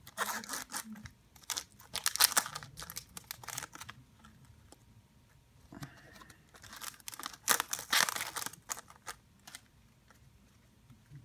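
Foil wrapper of a Pokémon trading card booster pack being torn open and crinkled, in bursts through the first four seconds. It crinkles again from about six and a half to nine seconds in as the cards are pulled out.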